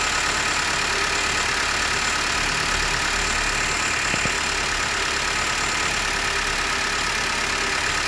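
Nissan X-Trail 2.0 idling at cold fast idle (about 1100–1200 rpm) with a steady metallic buzz, a thin metal part resonating at the alternator (part 23100-4BB0B). The noise is heard only while the engine is cold and goes away once idle drops below 1000 rpm.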